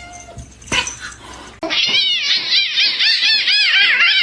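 Cat meowing: one meow tails off at the start. About a second and a half in comes a louder, fast run of short, high mews, about five a second.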